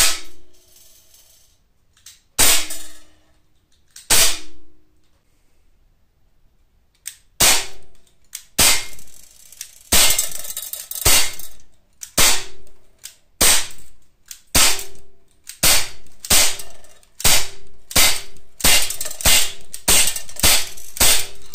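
Umarex Glock 19 non-blowback CO2 pistol firing steel BBs: about twenty sharp cracks, more than a second apart at first and quickening to about two a second near the end. Most shots are followed by a short metallic ring from the BB striking the steel target trap.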